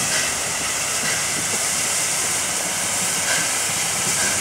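LNER A4 steam locomotive hissing steam steadily as it moves slowly along the track.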